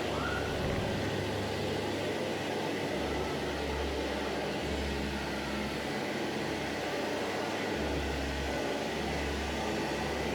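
Hamra HM61 vacuum cleaner running steadily, a continuous motor and suction noise with a low rumble that comes and goes.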